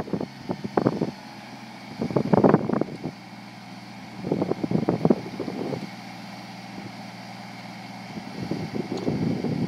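Small tractor's engine running steadily while it powers the hydraulic hedge-trimmer arm, broken by several loud, irregular bursts of noise.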